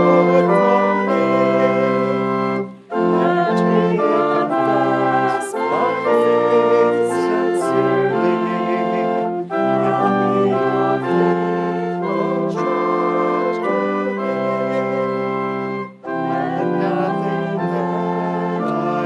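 Church organ playing a hymn in held chords, with voices singing along. The music pauses briefly twice, about three seconds in and near the end, between phrases.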